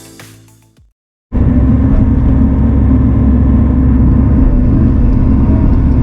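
Background music fades out, then after a brief silence heavy-equipment diesel engine noise cuts in loud and steady, from about a second and a half in.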